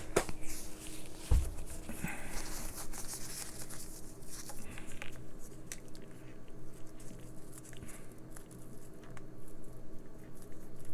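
Small clicks, taps and scratching from handling and prying at the tiny parts of a hearing aid being taken apart, with a dull knock about a second and a half in, over a faint steady hum.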